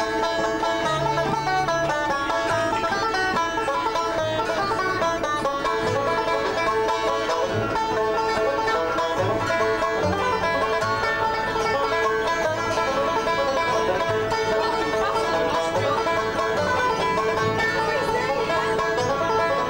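Folk band playing a tune together on fiddle, banjo and acoustic guitars.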